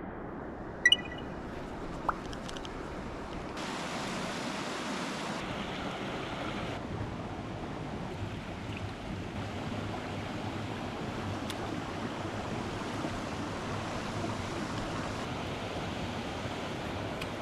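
Mountain stream water rushing steadily, with two sharp clicks about one and two seconds in.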